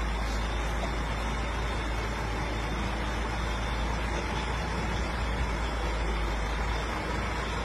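Heavy truck's diesel engine running as it creeps slowly forward, a steady low rumble.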